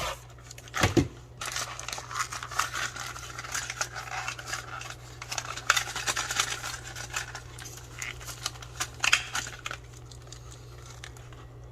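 Plastic and cardboard packaging being handled and opened: crinkling and rustling with small clicks and taps, starting with a thump about a second in and dying away near the end, over a steady low hum.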